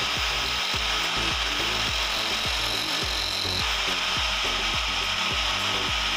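Electric angle grinder running with a small metal engine part, spun in a drill chuck, pressed against its disc to grind it down: a steady grinding hiss over the grinder's motor whine. Part of the hiss drops away about three and a half seconds in as contact eases.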